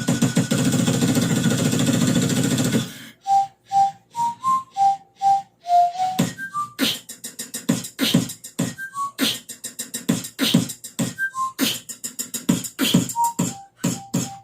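Dense music cuts off about three seconds in. Beatboxing follows: mouth-made percussive hits and clicks in a loose rhythm, with short whistled notes woven between the beats in little rising and falling runs.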